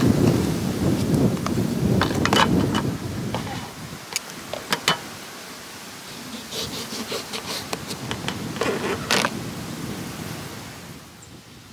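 Gusty wind rumbling on the microphone for the first few seconds over light clatter of a plastic lid set on a wooden table. Then a knife cuts through a lemon on a plastic lid, with a run of small knocks and taps.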